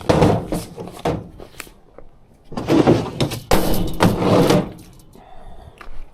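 Knocking, rattling and scraping of plumbing equipment being grabbed and moved, in two loud spells of clatter.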